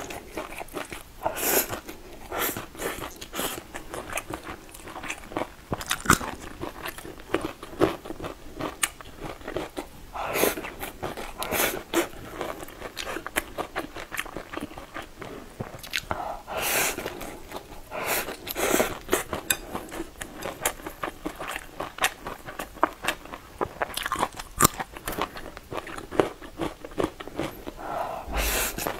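Close-miked eating of sauced noodles with chopsticks: wet chewing and biting in a dense run of small clicks, broken by several louder slurps of noodles being drawn into the mouth.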